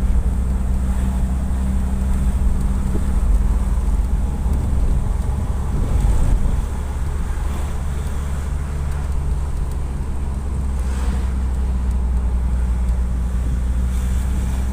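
Nissan Urvan's ZD30 four-cylinder diesel engine running at a steady speed, a constant low hum with some wind noise on the microphone.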